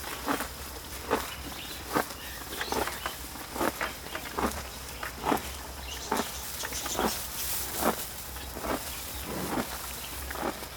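Slow, even footsteps, a little more than one step a second, over a faint low hum.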